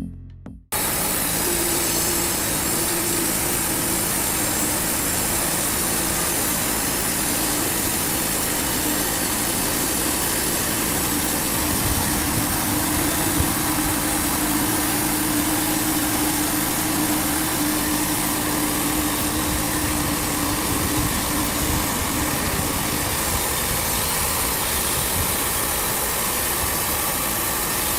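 Wood-Mizer portable band sawmill running steadily, its engine and band blade making an even mechanical noise with a faint hum underneath.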